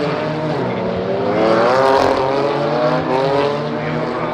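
GT4 race car engines running at racing speed, with one engine's pitch rising and then falling about two seconds in.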